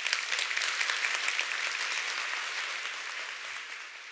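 Audience applauding: dense, steady clapping that eases off near the end.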